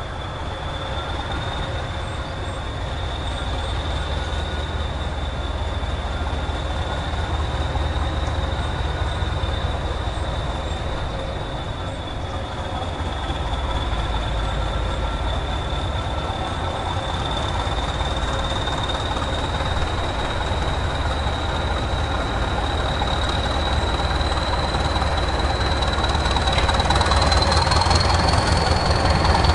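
Class 20 diesel locomotive approaching slowly, its engine running with a steady high whistle over a low rumble. It grows louder and the whistle rises a little in pitch near the end as the locomotive draws close.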